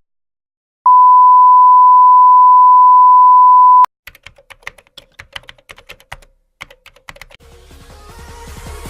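Sound-effect clips: a loud, steady electronic beep of one pitch, held for about three seconds and cut off sharply, like a censor bleep. It is followed by computer keyboard typing, rapid irregular key clicks, with a rising swell of noise building under them near the end.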